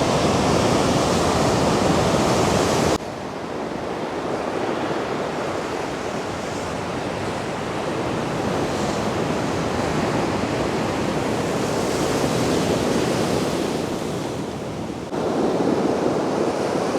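Storm surf crashing and washing on the shore in strong wind, with wind buffeting the microphone. The sound drops abruptly to a softer roar about 3 s in and jumps back up near the end.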